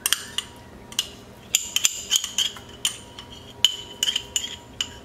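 A metal spoon clinking and scraping against a small jar while scooping Dijon mustard out of it: a dozen or so irregular sharp clinks, each with a brief high ring.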